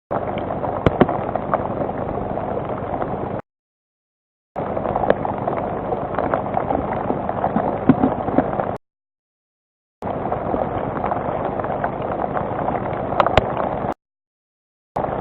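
Rain pattering on a webcam microphone, a dense hiss scattered with sharp drop clicks. The sound cuts out to dead silence three times for about a second each, as the stream's audio drops out.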